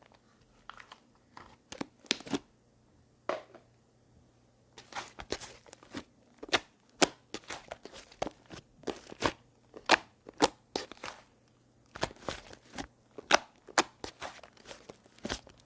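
Slime being squeezed and pressed by hand, giving off a rapid, irregular run of sharp clicking and popping sounds.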